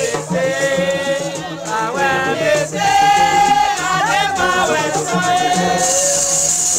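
Voices singing a chant-like melody together, with long held notes and sliding pitch between them, over a steady rattle of shakers.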